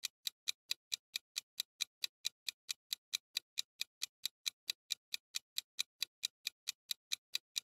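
Countdown-timer ticking sound effect: quiet, sharp, evenly spaced clock ticks, about four and a half a second.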